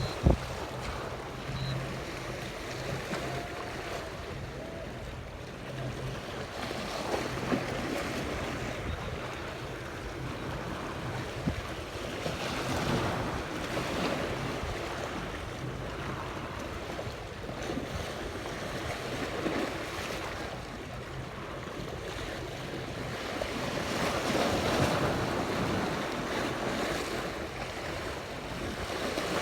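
Sea waves washing in, swelling every few seconds, with wind buffeting the microphone and a faint steady low hum underneath for much of the time.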